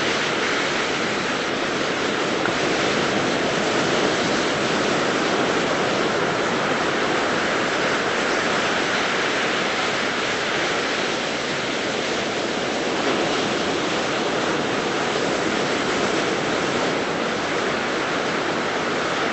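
Ocean surf washing onto a beach, a steady rush of waves.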